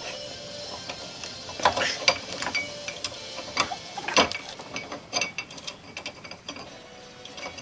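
Socket ratchet clicking and metal parts clanking in irregular bursts, with sharp knocks about two and four seconds in: a new brake caliper bracket being bolted onto the front hub.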